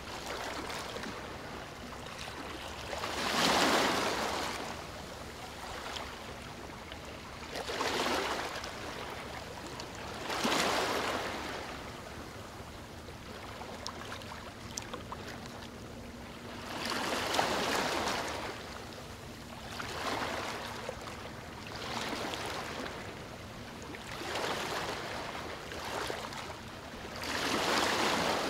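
Water washing in gentle swells, a surge of rushing water every two to four seconds over a steady background rush, as of small waves lapping.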